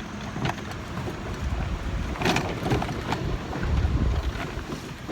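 Wind buffeting the microphone with a low rumble that swells past the middle, and a few short knocks and clicks.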